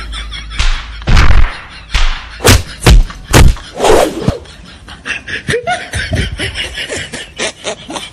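Hand blows landing on a man's back: a run of loud thumps and slaps in the first half, then quieter scuffling. Laughter and voices mixed in.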